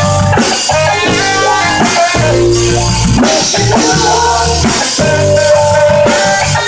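Live band music with drum kit, bass and guitar playing a steady groove, an instrumental stretch without singing.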